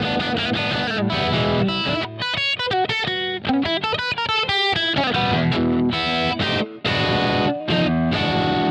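Electric guitar with a P90 pickup being played: strummed chords, a quick run of picked single notes in the middle, then chords again.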